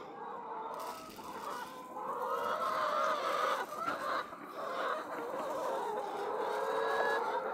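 A large flock of brown laying hens clucking and calling, many voices overlapping. The flock grows louder about two seconds in.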